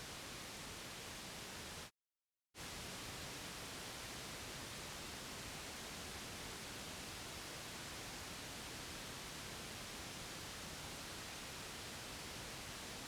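Steady white noise, an even hiss for a baby's sleep, cutting out completely for about half a second around two seconds in before resuming unchanged.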